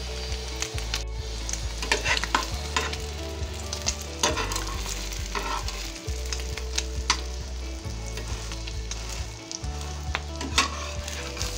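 Bread-and-egg toast frying in hot mustard oil in a metal pan: a steady sizzle with scattered pops and crackles, and a metal spatula now and then knocking and scraping against the pan.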